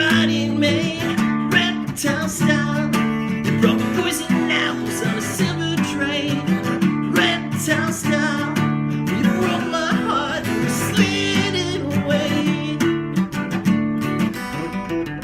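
Music: a band playing a guitar-led passage between sung verses, with no words sung.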